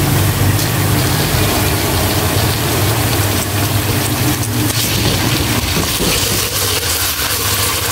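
Onions and ginger-garlic paste sizzling in hot oil in a steel pot, with a slotted spoon stirring and scraping, over a steady low hum.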